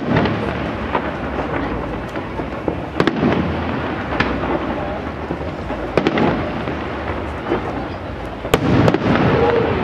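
Aerial firework shells bursting in a professional display: five or so sharp bangs a few seconds apart. The loudest comes near the end and trails off in a rolling rumble.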